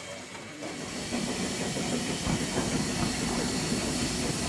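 BR Standard Class 4MT 2-6-4 tank steam locomotive letting off steam: a hiss that builds about half a second in and holds as a steady, loud rush with a low rumble beneath it.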